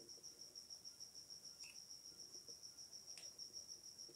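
A faint cricket chirping in a fast, even, high-pitched pulse, with two soft ticks in the middle.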